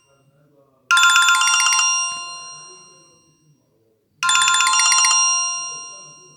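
Alcatel OT-3026X mobile phone ringtone playing: a short, quick phrase of electronic chime tones that comes twice, about three seconds apart, each time fading away slowly.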